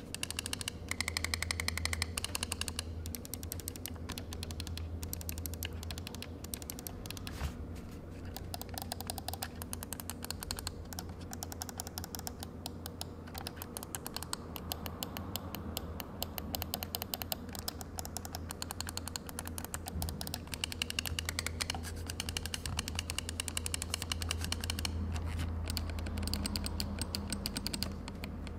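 Roccat Kone XP Air gaming mouse's buttons clicked over and over, many clicks a second, in a click sound test. The clicks, from Titan Switch Optical switches on the main buttons, are a little mushy rather than crisp.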